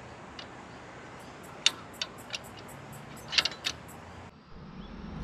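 A few sharp metallic clicks and clinks from a Treg poly-block off-road trailer coupling being handled and secured on the tow hitch, with a quick cluster of them about three and a half seconds in.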